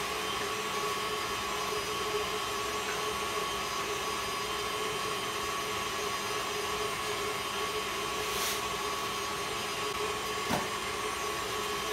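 Electric stand mixer running steadily, its whisk beating egg whites toward a froth for meringue: an even motor hum with a steady whine. A small knock near the end.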